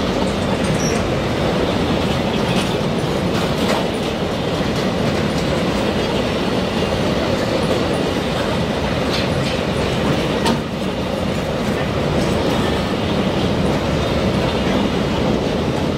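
Container flat wagons of a freight train rolling past: a steady rumble of steel wheels on rail with clicks over the rail joints, and a sharper clank about ten and a half seconds in.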